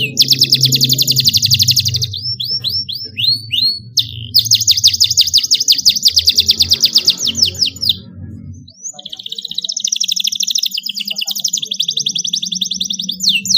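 Domestic canary singing long rolling trills of rapid repeated notes, broken by a few short downward-sweeping notes and a pause about two thirds of the way in. Background music plays low underneath and stops partway, leaving a steady low hum.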